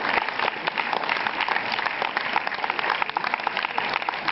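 Audience and cast applauding: many hands clapping in a dense, steady patter.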